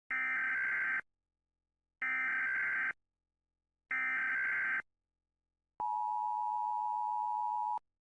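Electronic emergency alert tone: three identical higher-pitched beeps, each just under a second long and about two seconds apart. They are followed by one longer, lower steady tone of about two seconds.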